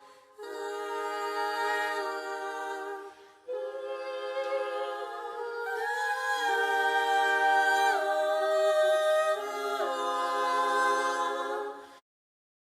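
Unaccompanied voices singing long held chords, choir-like, the chord changing every few seconds. There is a brief break about three seconds in, and the singing cuts off suddenly near the end.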